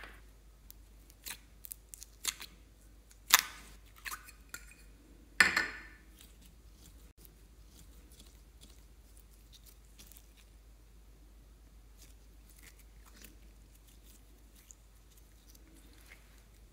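Glossy blue slime being handled out of its plastic tub and squeezed by hand: a handful of sharp clicks and pops, the loudest about three and five and a half seconds in, then only faint soft crackles as it is squished and stretched.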